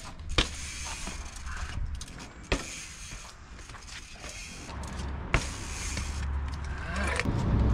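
Street trial bike, a Specialized P.Trials, hopping on stairs: three sharp knocks of the wheels landing, roughly two and a half seconds apart, over a steady low rumble that grows louder near the end.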